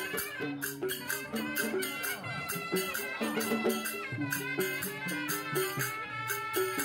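Traditional-style music: a melody stepping between held notes over a steady, fast percussion beat.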